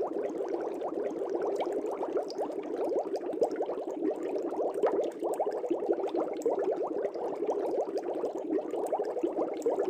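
Steady bubbling in a fish tank: a dense stream of air bubbles gurgling and popping at the water, with small higher ticks scattered through it.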